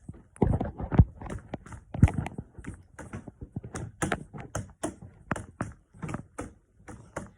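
A run of irregular clicks and taps, a few of them sharper knocks, like fingers tapping or something being handled close to the microphone.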